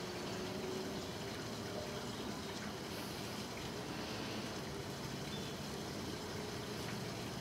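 Steady light rain falling on a flooded street and standing water, with a faint low hum in the background.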